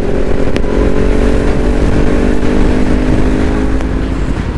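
Kawasaki Ninja 400's parallel-twin engine running at a steady cruising speed, with wind rush.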